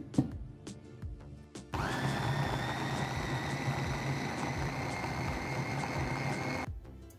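Electric food chopper with a stainless-steel motor head on a glass bowl, blending sliced kiwis into puree. It switches on suddenly about two seconds in, runs steadily with a high whine for about five seconds, then cuts off abruptly near the end.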